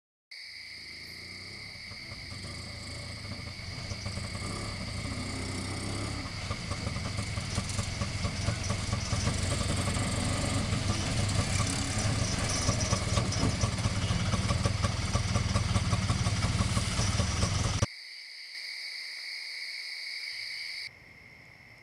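A motor vehicle's engine running and growing steadily louder over continuous cricket chirping. The engine sound stops abruptly about eighteen seconds in, leaving only the crickets.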